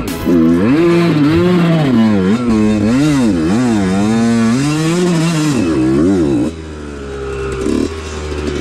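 Dirt bike engine revving up and down over and over as the throttle is opened and closed; about six and a half seconds in it drops quieter to a steadier, lower note.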